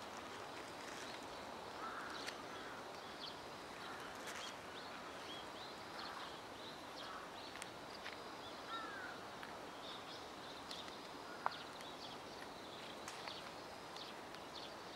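Faint outdoor ambience: a steady background hiss with scattered short, high chirps and calls of distant birds, and one sharp click a little past the middle.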